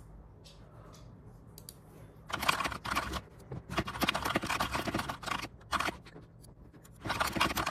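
Typing on a mechanical keyboard: rapid key clacks in three bursts, the first starting about two seconds in, with short pauses between.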